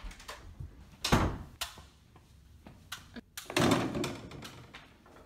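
A door banging shut with a sharp thud about a second in, then a second, longer door bang with a rattle a little past the middle, and a few small knocks between.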